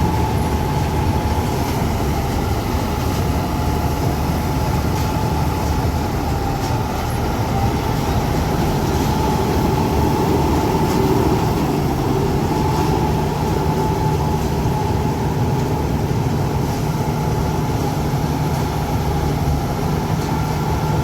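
John Deere 5310 combine harvester running and working, a steady engine drone with a constant high whine from its machinery above it.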